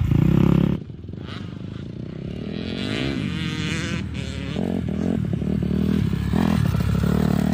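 Honda CRF250 four-stroke single-cylinder dirt bike engine. The loud, close engine sound breaks off abruptly about a second in; the engine then revs up with rising pitch and gets steadily louder as the bike rides back toward the microphone and passes close near the end.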